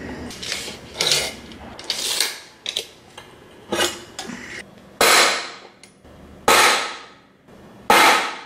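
A hammer striking a center punch held on a steel bracket plate on a steel workbench: three sharp, ringing metal blows about a second and a half apart in the second half. These follow lighter clinks of tools on the steel.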